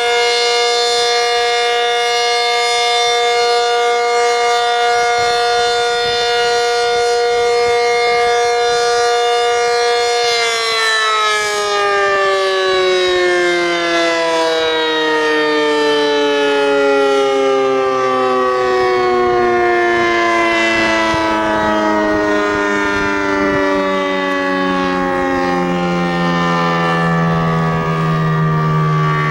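ACA Cyclone 125 tornado siren sounding a steady tone, then, about ten seconds in, winding down with a slow, continuous fall in pitch.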